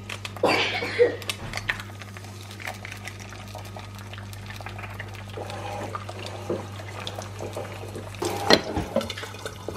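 Eggs frying in a pan: a quiet, steady sizzle with fine crackling over a low hum, and one sharp knock about eight and a half seconds in.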